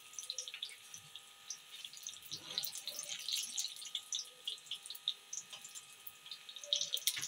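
Samosas deep-frying in hot oil in a wok: a steady sizzle with many small pops and crackles.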